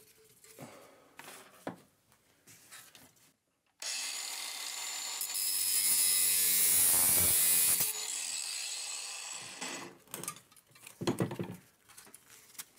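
A power tool switches on suddenly a little under four seconds in and runs for about four seconds, cutting into the metal of a refrigerator compressor. It then runs down and fades over about two seconds. Light handling clicks come before it.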